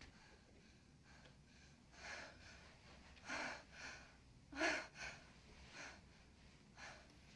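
Faint, ragged gasps and heavy breathing of a person out of breath after a violent struggle: a string of short, uneven breaths starting about two seconds in.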